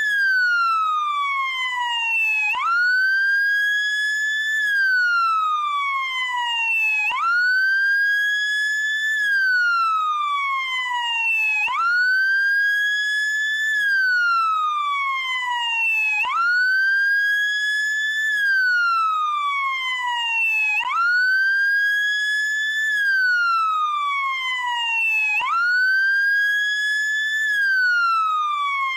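Wail siren of a SAMU motorcycle ambulance. It is one tone that sweeps up quickly, holds briefly at the top, then glides slowly back down, with the cycle repeating about every four and a half seconds.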